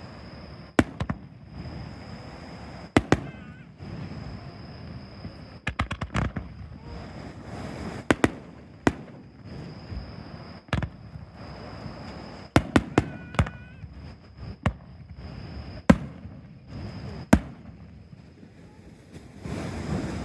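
Fireworks shells bursting in sharp bangs at irregular intervals, some singly and some in quick clusters of two to four.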